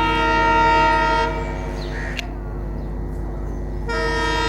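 Air horn of an EMD WDP4D diesel locomotive sounding a chord-like blast of about a second and a half, then a second blast starting near the end, over a steady low rumble.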